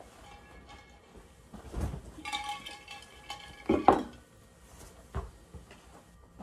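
Handling sounds as things are taken out of a canvas tote bag: small metallic clinks and a ringing jingle about two to three seconds in, then a louder thump just before four seconds, and a softer knock about five seconds in.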